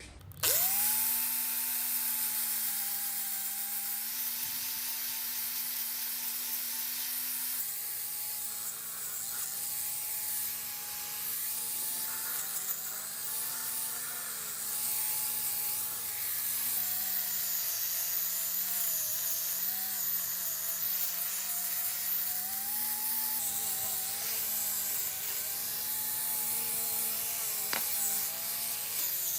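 Handheld electric power tool starting up abruptly and running. Its motor pitch dips and recovers again and again as it is pressed into the work, over a steady hiss of abrasion on metal.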